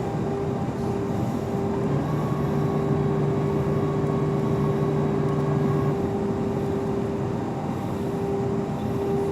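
Airliner cabin noise: the steady drone of the engines and air flow with a constant hum, and a second, lower hum that comes in for about four seconds midway and then stops.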